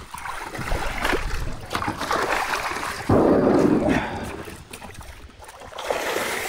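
Splashing in shallow river water as a hooked grass carp thrashes at the surface, with a louder burst of splashing about three seconds in and another near the end.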